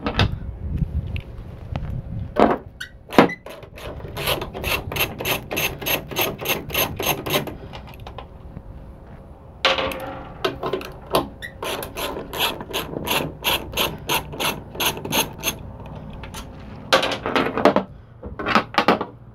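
Socket ratchet clicking as it backs out the tail lamp's top and bottom mounting bolts, in several runs of steady clicks at about three or four a second with short pauses between them.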